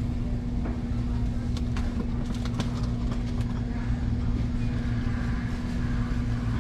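Steady low machine hum of a warehouse store's background machinery, with one constant tone over a low rumble, and a few light clicks between about one and a half and three and a half seconds in.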